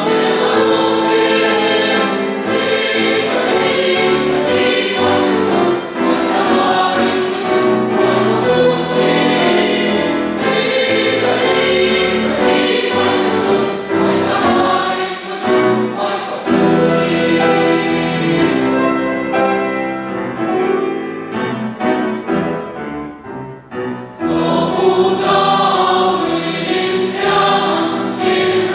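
Boys' and young men's choir singing in parts with accompaniment. About three-quarters of the way through, the sound thins out and grows quiet for a few seconds, then the full choir comes back in.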